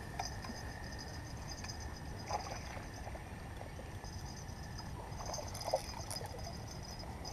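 Faint outdoor ambience: high, pulsing chirping of insects, with a few soft knocks about two seconds and five and a half seconds in.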